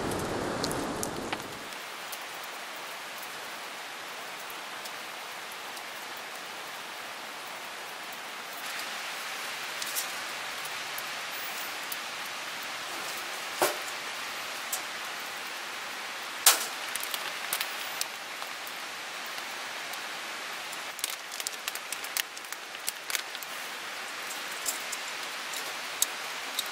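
Steady hiss of rain falling, with scattered sharp ticks and clicks; the hiss steps up a little about a third of the way in, and the ticks come more often near the end.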